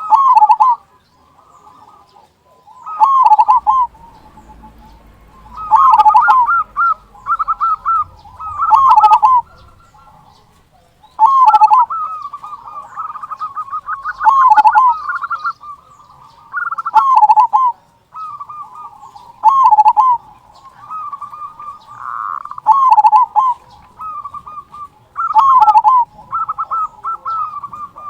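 Zebra dove (perkutut) cooing over and over in full song. Loud, trilled coo phrases come about every three seconds, with softer cooing between them.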